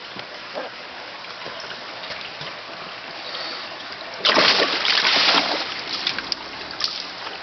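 A koi thrashing in water: a loud splash about four seconds in, lasting over a second, over a steady background of running water.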